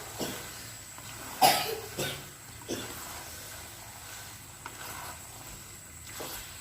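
A person coughing a few times in short, sharp bursts, the loudest about a second and a half in.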